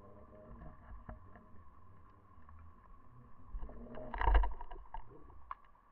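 Underwater noise picked up by a submerged fishing camera: a steady hum with scattered sharp clicks, and one loud knock about four seconds in.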